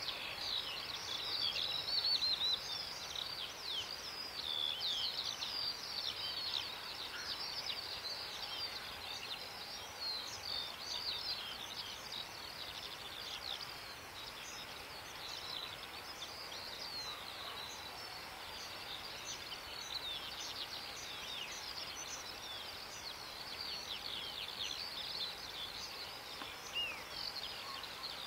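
Many small birds chirping and singing at once: a dense, continuous chorus of short, high calls and quick pitch sweeps.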